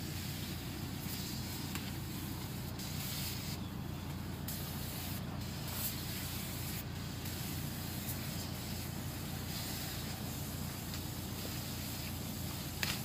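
Hand-held spray gun hissing as it sprays a fruit-nourishing solution onto grape bunches, the hiss breaking off briefly several times, over a steady low motor hum.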